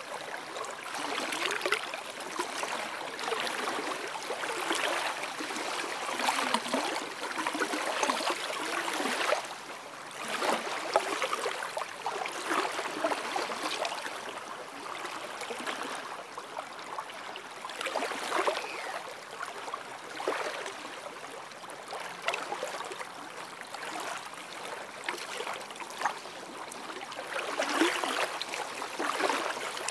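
Small waves lapping on a sandy lakeshore, washing in and drawing back in irregular surges every second or two.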